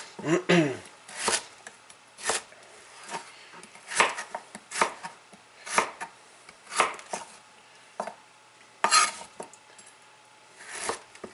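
Chef's knife chopping peeled raw beets into cubes on a cutting board: single sharp chops of the blade hitting the board, about one a second and unevenly spaced.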